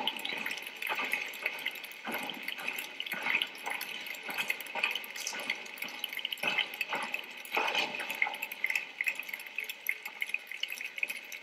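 Audience applauding: a dense, uneven clatter of clapping with no music.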